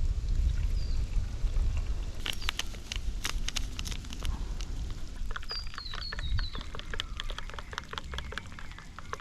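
Wind rumbling on the microphone, with a few sharp clicks about two to four seconds in. Then an animal gives a rapid chattering call of short, falling high notes over the last few seconds.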